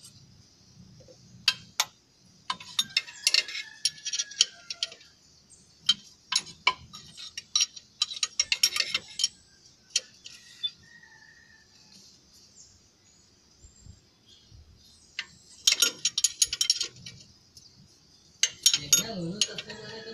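Metal hand tools clicking and clinking on the diesel engine's injector area, in several bursts of quick metallic clicks with single clicks between.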